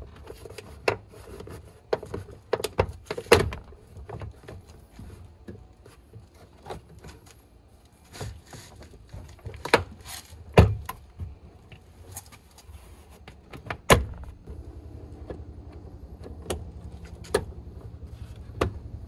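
Plastic door trim panel of a 2010 Toyota Tundra being hung back on the door and pressed home: a series of sharp clicks and knocks as its retaining clips snap into the door and the panel is knocked into place.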